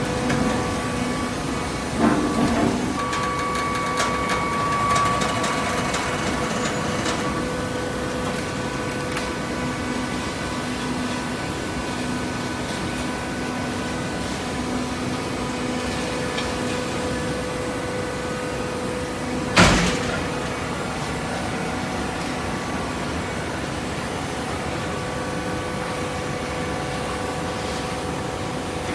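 Hydraulic cardboard baler running, its motor and pump giving a steady hum. A short clank comes about two seconds in, and one sharp, loud bang about two-thirds of the way through.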